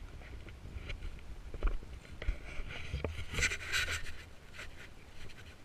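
Footsteps shuffling and crunching through wet fallen leaves, a scratchy rustle at each step, with a louder burst of rustling about three and a half seconds in. A steady low rumble sits on the microphone underneath.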